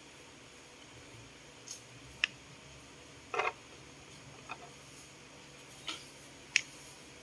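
About six faint, short clicks and taps of small plastic objects being handled on a tabletop: poster-paint jars and a paintbrush. One slightly fuller double knock comes about halfway through.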